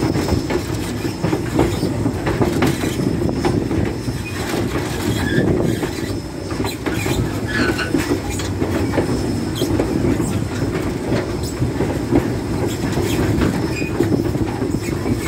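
Steam train in motion, heard from an open-air car coupled to Southern Railway No. 401, a 2-8-0 steam locomotive: a steady rumble of wheels and running gear on the track, with frequent clicks and rattles.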